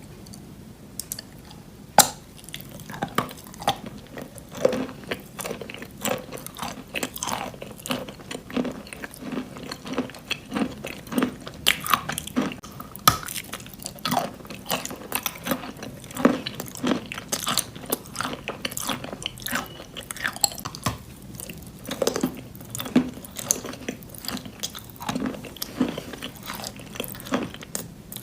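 Wet chalk in white clay paste being bitten and chewed close to the microphone: dense, irregular crunching and crackling, with one sharp loud crunch about two seconds in.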